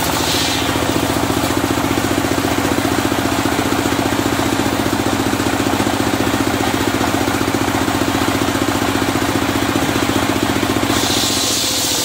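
The engine driving a circular-saw sawmill runs steadily with a fast, even chugging beat while the saw spins without cutting. A high hiss of the blade in the wood stops just after the start and comes back about a second before the end.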